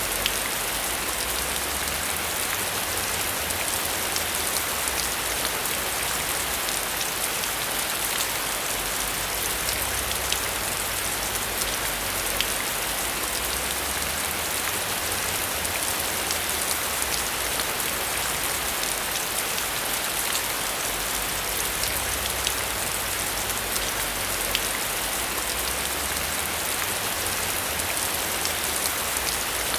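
Heavy rain falling steadily, a dense hiss with many individual drops ticking sharply on a surface.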